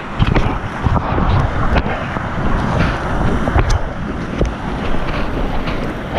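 Whitewater rapids rushing and splashing right at a helmet-mounted camera, with water and air buffeting the microphone in low thumps and a few sharp splash clicks.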